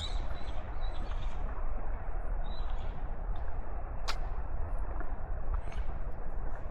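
Outdoor ambience in light rain: a steady hiss over a low rumble, with faint bird chirps and a single sharp tick about four seconds in.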